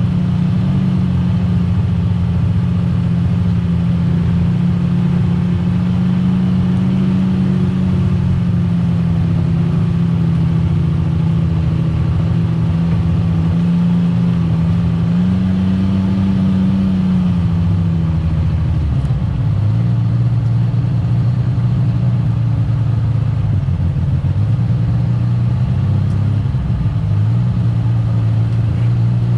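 Side-by-side UTV engine running as it drives along a trail. Its pitch holds steady, rises briefly about halfway through, then drops to a lower, less even note for the rest.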